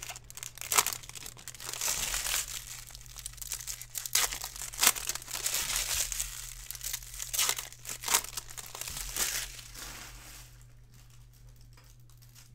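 Foil trading-card pack wrapper crinkling and tearing as it is ripped open, with many sharp crackles. It dies away about ten seconds in.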